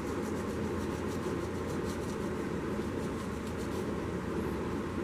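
Steady mechanical hum of running workshop machinery, with faint scratchy ticks of fingers pressing coffee grounds into a crack in the wooden tankard.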